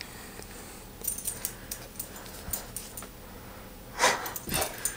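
Airedale terrier sniffing and breathing close to the microphone, with a few faint clicks and one loud, noisy blast of breath about four seconds in as its nose comes right up to the mic.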